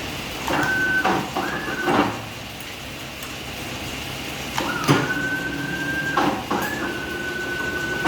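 CNC wire bending machine working through its cycle: its servo drives whine up to a steady pitch and back down in four moves, two short ones, then a pause, then two longer ones. The moves are punctuated by sharp clacks, over a steady machine hum.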